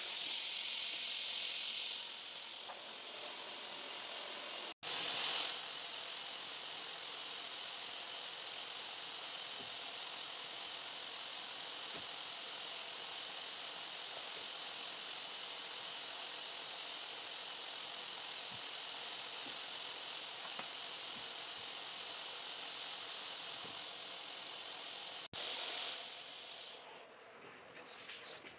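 Steady high hiss of a rotary hot-water carpet-extraction tool working a rug, its vacuum pulling air and water up through the hose. The hiss swells louder for a moment a few times and stops about two seconds before the end.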